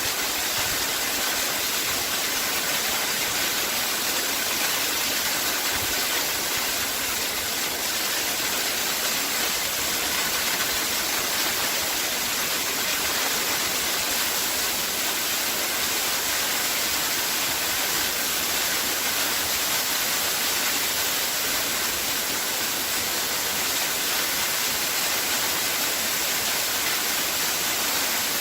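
Waterfall: a steady, unbroken rush of falling water, its hiss strongest in the high range.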